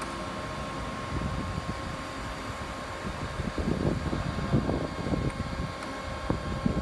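Steady mechanical hum with a fixed tone from a prototype LNG tank container unloading rig running on test. From about three and a half seconds in, irregular low rumbles and thumps come and go over it.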